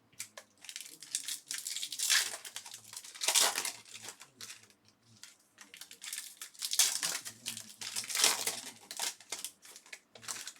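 Foil baseball card pack wrappers being torn open and crinkled by hand, one pack after another, in repeated bursts of crinkling.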